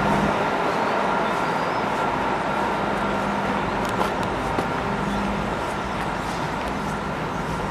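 Steady outdoor background noise, a constant hum under a wide hiss, with two faint clicks about four seconds in.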